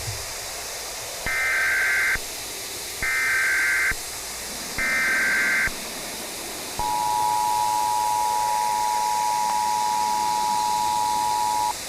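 Emergency Alert System header: three short bursts of SAME data tones, each about a second long, then the two-tone EAS attention signal held steadily for about five seconds, over a steady hiss.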